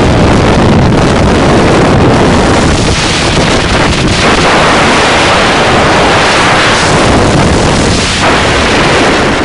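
Loud, steady wind rush on the microphone of a sport motorcycle riding at highway speed.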